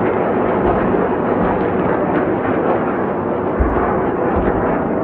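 Distant explosions of Iron Dome interceptors hitting incoming rockets: a constant rumbling noise, with two deep thuds about three and a half and four and a half seconds in.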